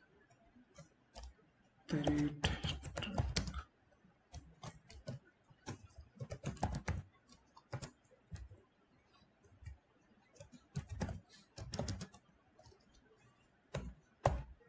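Computer keyboard typing in short, irregular bursts of keystrokes. The densest and loudest flurry comes about two seconds in.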